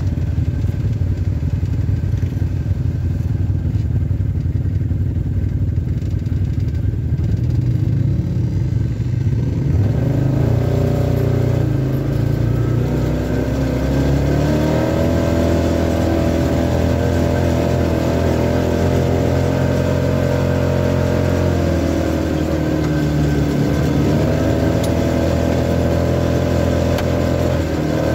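Off-road vehicle engine running steadily. From about ten seconds in, its pitch rises and falls smoothly with the throttle.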